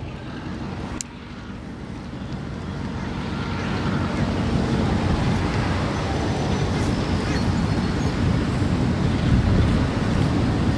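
Low rumble of an approaching diesel train, growing steadily louder and then holding, with wind buffeting the microphone. A sharp click about a second in.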